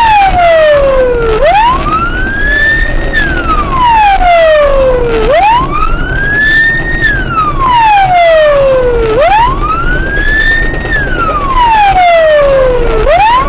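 Police car siren on a slow wail: each cycle climbs in pitch over under two seconds, then falls more slowly, repeating about every four seconds, over steady road and engine noise of the car driving at highway speed.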